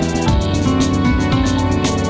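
Instrumental background music with a steady beat, sustained bass and held chord notes.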